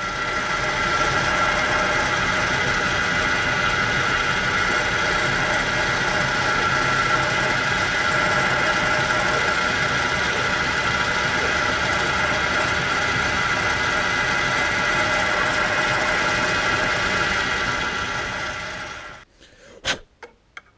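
Metal lathe running steadily, its chuck spinning a brass piston while a hand file is held against it to finish it to size. The lathe is switched off and runs down a little before the end, followed by a few sharp clicks.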